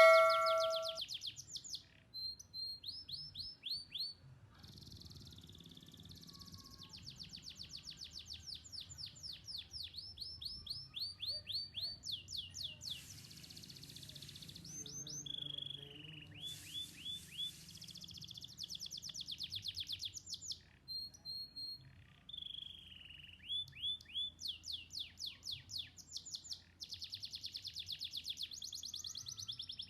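Canary singing: phrases of rapidly repeated trill notes separated by short pauses, with two brief hissing stretches near the middle.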